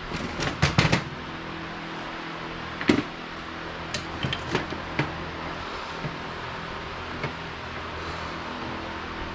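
Hard clinks and knocks of metal motorcycle fork parts and an adjustable wrench being handled. A quick cluster comes in the first second, then single knocks about three, four, four and a half and five seconds in, over a steady background hum.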